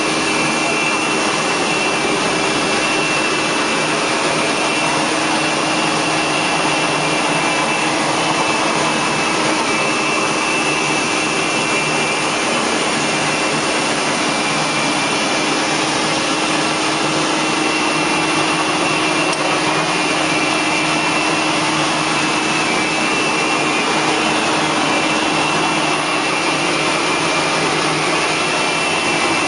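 Carpet-cleaning extraction vacuum running steadily while the Rotovac 360i rotary wand cleans carpet, a constant rush of suction with a thin high whine on top.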